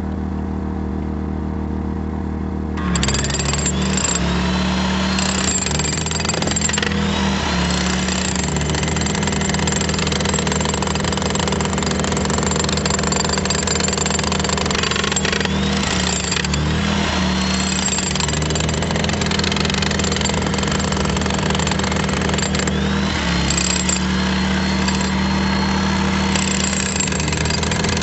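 A portable generator runs steadily. About three seconds in, a Bosch electric demolition breaker hammer starts and keeps hammering into a concrete footer, breaking it out to expose the rebar. It pauses briefly a few times.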